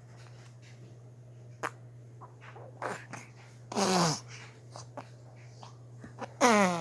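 Funny vocal sounds: short squeals that slide down in pitch, the loudest one near the end, with a few clicks and snuffly noises between them over a steady low hum.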